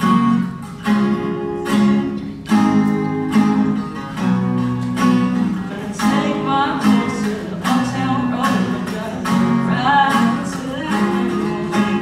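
Acoustic guitar strummed in steady chords, with a male voice singing along through a microphone, most clearly in the second half.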